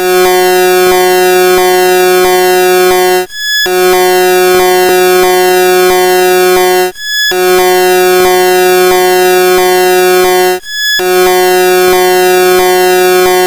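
A loud, harsh synthesized alarm tone: a steady buzzing chord sounded in blasts of about three and a half seconds, with short breaks between them, four blasts in all.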